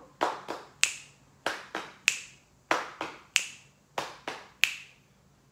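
Body percussion in a ti-ti-ta rhythm (eighth, eighth, quarter): two quick pats on the lap followed by a sharper finger snap. The pattern repeats four times at an even pace.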